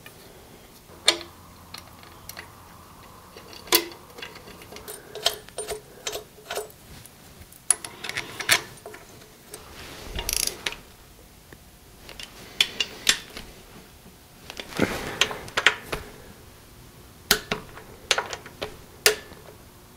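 Hand tools at work on a diesel engine block: scattered metallic clicks and clinks of bolts, fittings and a wrench, with short rustles of handling. A ratchet is worked on a bolt near the end.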